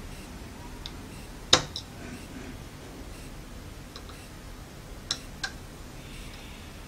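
Small screwdriver tip clicking against the trimmer potentiometer of a DC buck converter module as it is turned: a few sharp clicks, the loudest about a second and a half in and fainter ones around four and five seconds in, over a steady low hiss.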